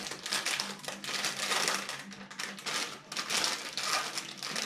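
Thin clear plastic bag crinkling and rustling in irregular bursts as hands open and handle it.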